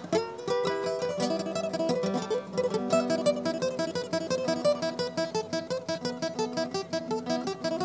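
Acoustic guitar playing an instrumental melody, a quick run of plucked single notes over chords.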